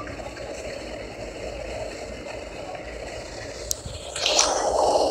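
Steady cabin noise of a jet airliner on final approach, heard from a window seat over the wing: the engine's hum and rushing air. Near the end a click, then a louder rushing swell.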